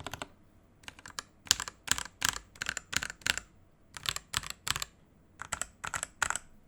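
Keystrokes on a Pulsar PCMK ISO TKL mechanical keyboard with lubed and filmed Outemu red linear switches and Redragon K552 keycaps: separate key presses in small irregular clusters with short pauses between, rather than continuous fast typing.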